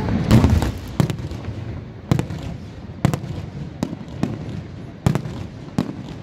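Aerial firework shells bursting, with about eight sharp bangs spaced roughly a second apart.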